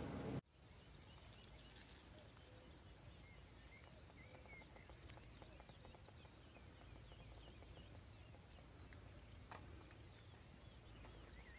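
Faint birdsong, many short chirps and glides, over quiet open-air ambience, with a few soft clicks. A louder steady hum cuts off abruptly just after the start.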